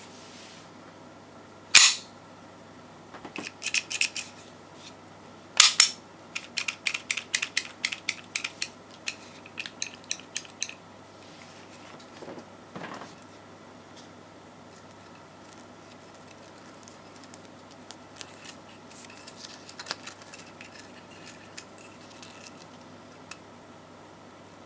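Walther P99 P.A.K. blank-firing pistol being handled: two sharp metallic clacks about two and six seconds in, then a quick run of small clicks, about three a second, for some five seconds, then a few faint clicks.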